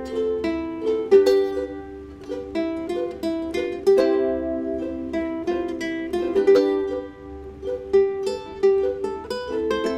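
Several ukuleles playing a tune together, a run of plucked notes in several parts at once.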